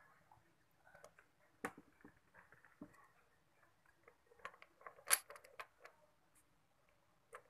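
Scattered light metallic clicks and clinks of Honda TMX motorcycle transmission gears and shafts being handled and knocked together, the loudest about five seconds in.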